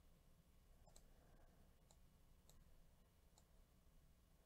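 Near silence: faint room tone with a few faint, isolated clicks.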